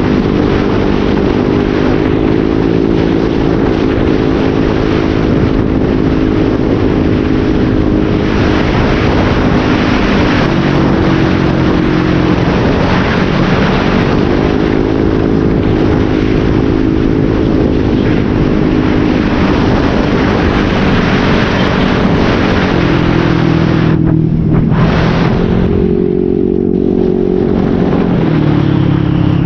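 Motorcycle running through an SC-Project aftermarket exhaust with a modified elbow, under way on a ride. The engine note drops and climbs back a few times as the throttle changes, over a steady rush of wind noise.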